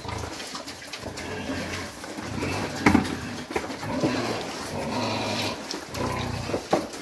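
A group of pigs grunting and eating at a feed tray, with a sharp knock about three seconds in and a few lighter clicks near the end.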